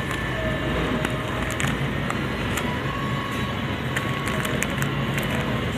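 Steady supermarket background din: a low hum and hiss with a few faint clicks.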